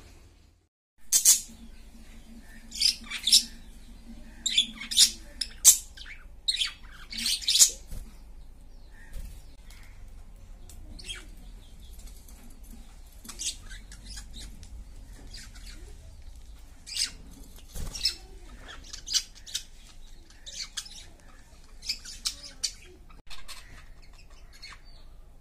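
Budgerigars chirping: short, sharp, high calls in quick runs, the busiest stretches coming in the first eight seconds and again toward the end, with quieter spells between.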